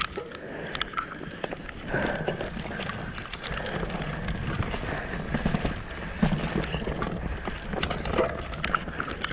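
Mountain bike ridden along a dirt singletrack: tyres rolling over soil and roots, with many short clicks and knocks from the bike clattering over bumps.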